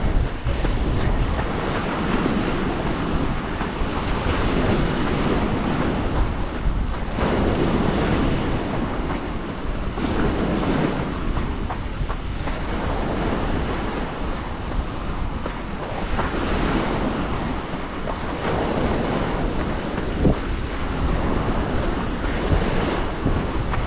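Small waves breaking and washing up a pebbly beach, swelling and easing every few seconds, with wind buffeting the microphone.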